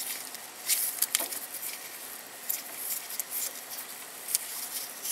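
Irregular light clicks and scrapes of a steel harmonic balancer puller being handled by a gloved hand, its centre forcing screw being fitted and turned against the crankshaft.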